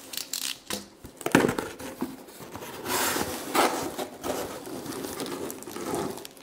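Cardboard box and its packing being opened by hand: irregular rustling and crinkling with sharp crackles and scrapes, loudest about three seconds in.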